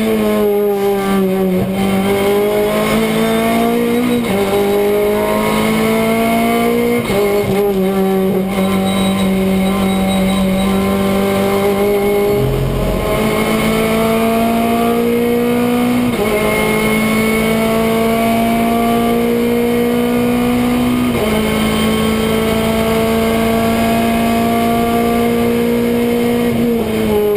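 Renault Clio Cup race car's four-cylinder engine under hard acceleration, heard from inside the cockpit: the revs climb steadily through each gear and drop sharply at every upshift, several times over, before falling away near the end as the driver lifts. A brief low rumble comes about 13 seconds in.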